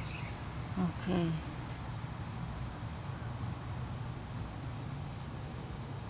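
Steady high-pitched buzzing chorus of cicadas.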